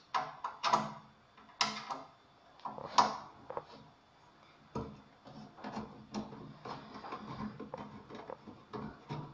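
Amplifier cabinet cover being lifted off and handled: three sharp knocks in the first three seconds, then a stretch of softer rubbing and small clatters.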